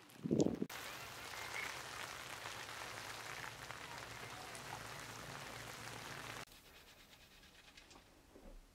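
Steady rain falling on wet ground, an even hiss that cuts off suddenly about six and a half seconds in, leaving quiet room sound. A brief loud call at the very start.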